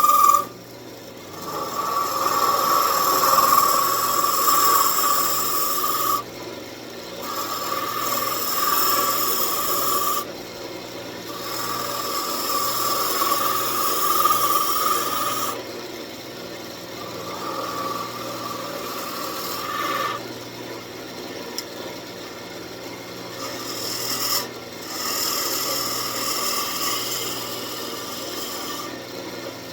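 A turning tool scraping the face of a walnut rosette as it spins on a wood lathe, in repeated passes of about four to five seconds with short breaks between. Each pass carries a steady whine over the scraping, and a low motor hum runs underneath.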